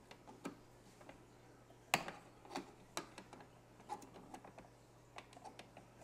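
Flathead screwdriver and fingers clicking and scraping against the plastic needle housing of a Keurig B70 coffee maker while a rubber holder on the needle is pried up: scattered small clicks at irregular intervals, the sharpest about two seconds in.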